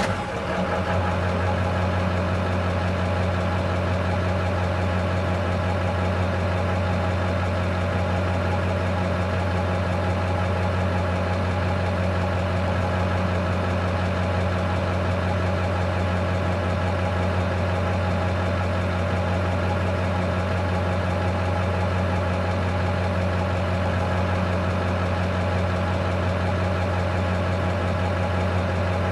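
Truck engine idling steadily: a low, even hum that never changes speed.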